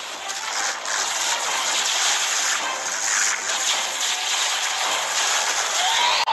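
Sound effect of rushing flames: a loud, steady hissing rush with no clear pitch.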